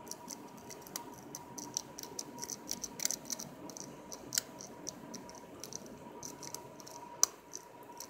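Lock-pick rake rocking in the keyway of a vintage Wilson Bohannan brass five-pin padlock under tension: many quick, light metallic clicks and scrapes as the pins are raked, with a sharper click about seven seconds in. The picker suspects a pin has been overset.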